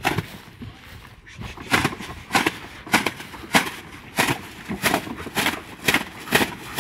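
Plastic bag tied on a stick being shaken hard to drive sheep, crackling and snapping in sharp strokes about twice a second from near the start onward.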